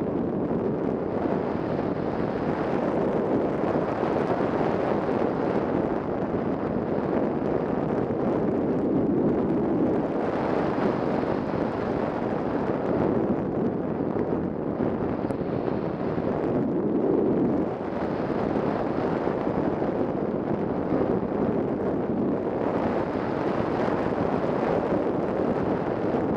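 Steady rush of airflow over the onboard camera of a 3-metre Ka8b model glider in flight, with no motor tone heard.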